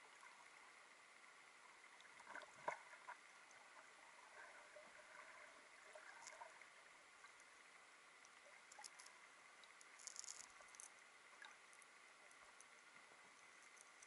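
Near silence of a camera held underwater: a faint, muffled hiss with a few soft clicks and ticks, the loudest a short cluster about two and a half seconds in.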